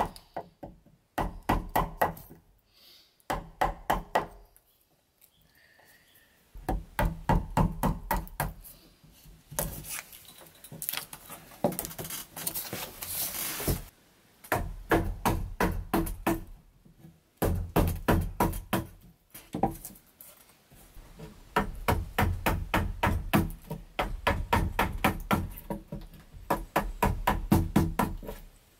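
A wooden mallet striking a steel chisel, chopping notches out of a wooden board in quick runs of sharp knocks, several a second, with short pauses between runs. In the middle stretch the chisel is pushed by hand, paring and scraping the wood without knocks.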